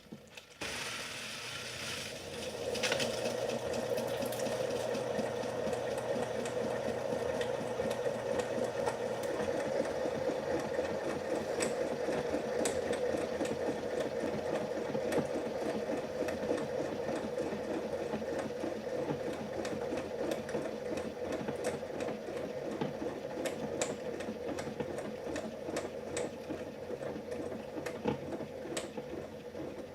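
Motor of a 1971 Hunter 22046 ceiling fan spinning up after a push-start and then running steadily with a fast, even mechanical rattle and occasional sharp ticks.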